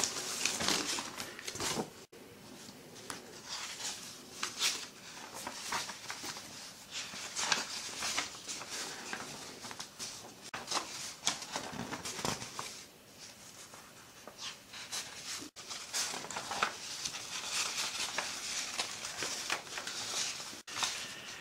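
Paper rustling as the pages of a printed instruction booklet are handled and turned, in soft irregular rustles, with plastic bag crinkling at first.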